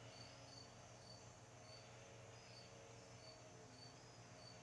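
Near silence: room tone with a faint low hum and a faint high chirp that repeats about every two-thirds of a second.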